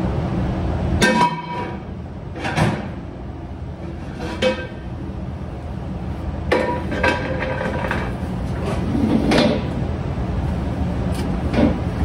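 Stainless steel pots and pans clanking against each other and against metal wire shelving as they are handled, several ringing clangs spread over the seconds, over a steady low hum.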